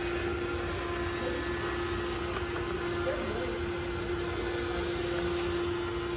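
iRobot Roomba i7+ robot vacuum running, a steady motor hum with a constant tone over an even whir.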